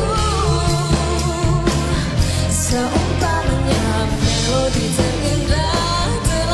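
A woman singing a Malay pop song with full band backing, holding and bending long notes.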